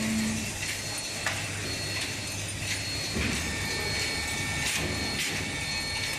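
Automatic plastic cutlery cutting and packing machinery running: a steady mechanical hum with a faint high whine, broken by a few sharp clicks from the moving parts.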